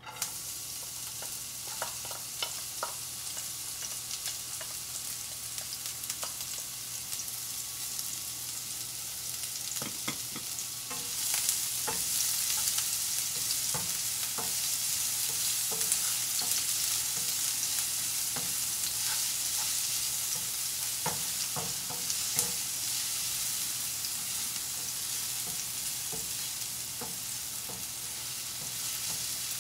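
Diced red onion sizzling in hot olive oil in a nonstick frying pan, the sizzle starting suddenly as the onion goes in and growing louder about eleven seconds in. A wooden spatula stirring it gives scattered clicks and scrapes against the pan.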